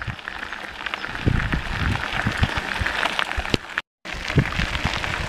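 Wind buffeting a moving microphone, with a steady crackle of small clicks and low bumps. The sound cuts out for a moment just before four seconds in.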